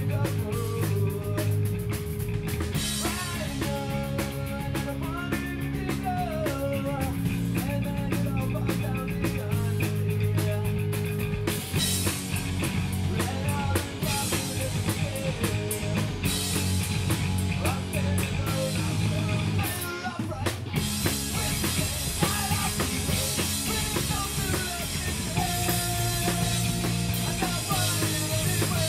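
Live punk rock band playing loudly: distorted electric guitars, bass guitar and drum kit with a male singer. The band cuts out briefly about two-thirds of the way through, then comes back in.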